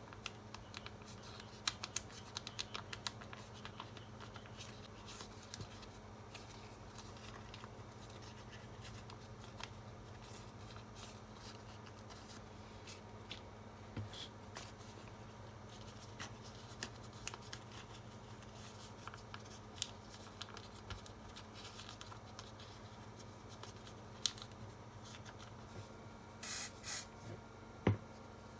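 Scattered small clicks, taps and scratchy rustles of hands working with small tools and materials, over a steady low electrical hum. There are a few short hissing bursts near the end.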